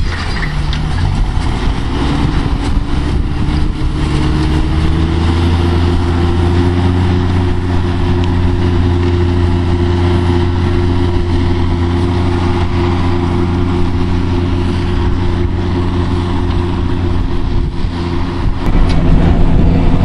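Fendt 820 tractor's six-cylinder diesel engine running under load as it pulls a reversible plough through the ground. The engine note rises over the first few seconds, then holds steady, and gets louder near the end.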